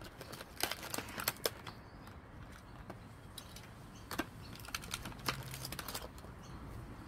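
Scattered sharp clicks and crackles of a diecast model car's plastic window box being handled and opened, with a flurry about a second in and more a few seconds later.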